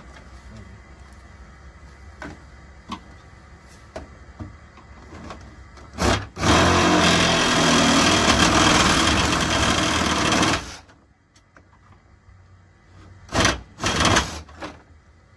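Reciprocating saw (Sawzall) cutting through a broken part of the car's front end behind the grille: a short blip of the saw, then a steady cut of about four seconds that stops suddenly, and two short bursts about three seconds later. Small knocks of handling the part come before the cut.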